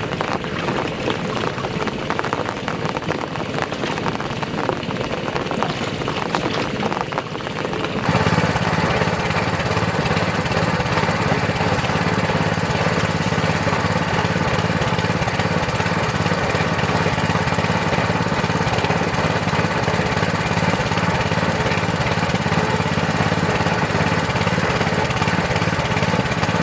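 A noisy hiss for the first several seconds. Then, about eight seconds in, the small engine of a water pump comes in abruptly and runs steadily at a constant speed.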